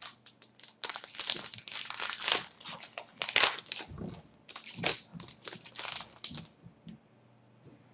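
Trading card pack wrapper being torn open and crinkled by hand: dense crackling for about six and a half seconds, then a few faint rustles.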